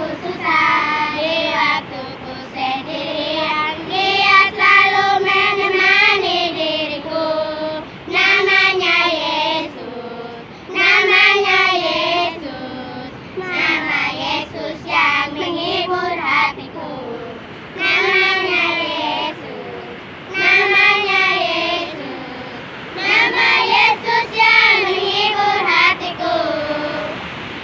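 A group of young girls singing a song together in unison, without instruments, in short phrases with brief breaths between them.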